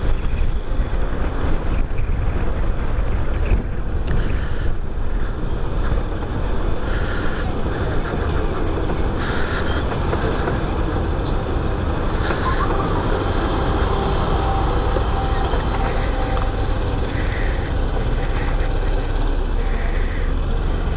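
Ride-along sound from a small Chinese motorcycle moving slowly in heavy traffic: its engine running steadily under a constant rumble of road and wind noise, with a large truck and a bus close alongside.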